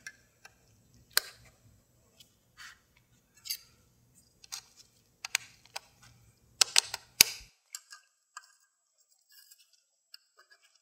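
Irregular sharp metal clicks and ticks from aviation snips being handled and fitted together at the pivot, with a cluster of louder clicks about seven seconds in.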